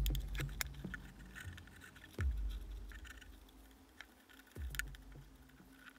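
Faint handling noises: light taps and scrapes as a paintbrush and plastic tub are worked against the glass terrarium, with three dull low bumps.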